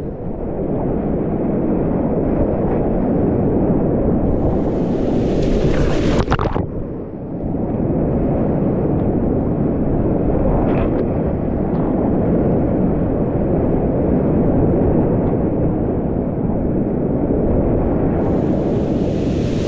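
Whitewater rapids rushing loudly around a kayak, heard close up as a heavy, dull rumble. A brighter, hissing splash of water comes about four seconds in and again near the end.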